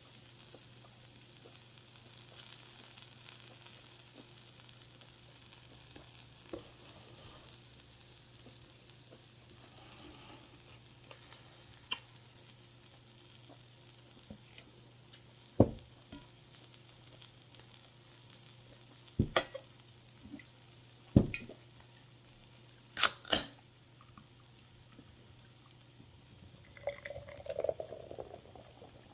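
Food sizzling faintly on a grill, a steady high hiss. Five sharp knocks and clinks come in the second half, two close together about 23 seconds in.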